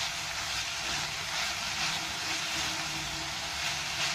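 Chopped spinach and beetroot sizzling in a kadai, a steady frying hiss, with a wooden spatula stirring and scraping the leaves in repeated strokes.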